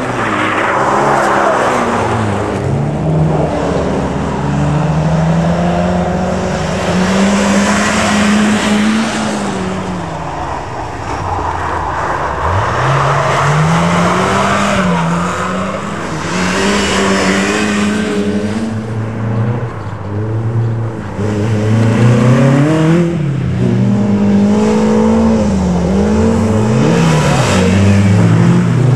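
Classic rally cars at full throttle on a snowy stage, taken one after another. Their engines rev up and down through gear changes and slides, the pitch rising and falling again and again.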